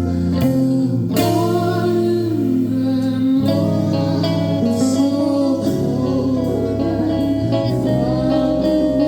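Live performance of a song: a singer holding long notes that bend up and down over guitar accompaniment.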